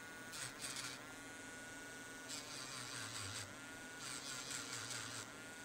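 Small battery-powered rotary grinding pen (Mant D1) grinding off the remains of old spot welds on a battery tab. It gives a faint, high whine that grows louder in three or four short spells as it bites.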